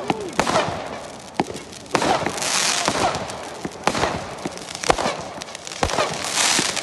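Fireworks going off: a string of sharp bangs at uneven intervals, with stretches of dense crackling about two and a half seconds in and again near the end.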